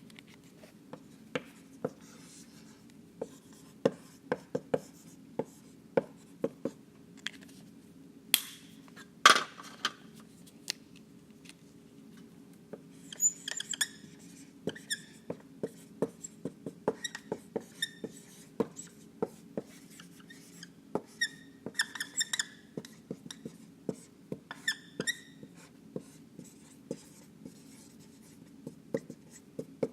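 Dry-erase marker writing on a whiteboard: many short taps and strokes, with a couple of long, loud strokes about a third of the way in and high-pitched marker squeaks in several spells through the middle. A steady low hum runs underneath.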